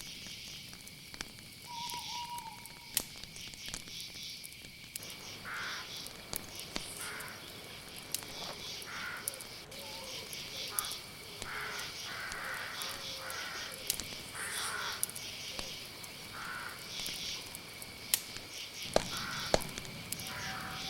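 Night chorus of crickets: a steady high trill under rapid pulsed chirping, with scattered sharp clicks. From about five seconds in, another animal joins with repeated short calls.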